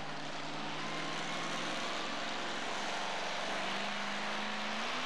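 Two-wheel-drive pulling truck's engine running at the start line, steady at first, then revving up with its pitch climbing gradually over the last couple of seconds as it readies to pull the sled.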